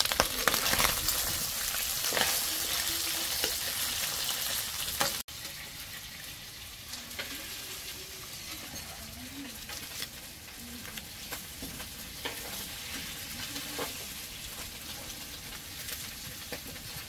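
Pork ribs and beef shank sizzling as they fry in a pot, with scattered small clicks. The sizzle drops quieter about five seconds in.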